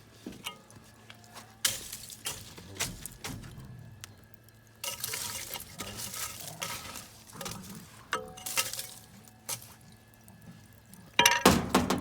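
Scattered metallic clinks and clanks with short bursts of rustling noise; the loudest clatter comes near the end.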